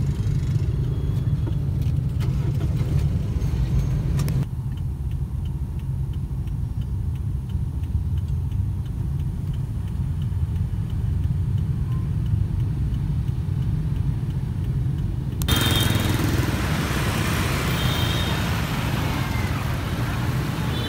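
Motor scooter ride through city traffic: a steady low engine-and-road rumble with street noise. The sound changes abruptly twice as the footage cuts. The middle part is quieter, with a faint even ticking about twice a second, and the last part is louder, with the hiss of surrounding traffic.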